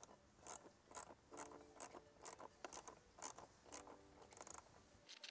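Faint clicking of a ratchet wrench tightening the 10 mm bolts on a Jeep Wrangler JL's airbox, about two or three clicks a second.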